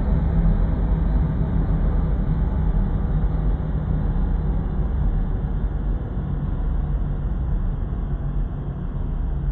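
Dark ambient drone music: a dense, steady low rumble with a grainy haze and a few faint held tones above it, easing slightly in loudness.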